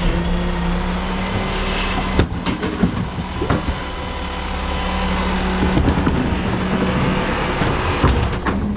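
Refuse truck's engine running steadily, with a few knocks and rattles.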